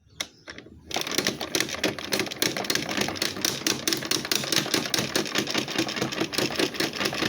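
Electrolux LSI09 washing machine running a wash cycle with a rapid, irregular clattering that starts about a second in.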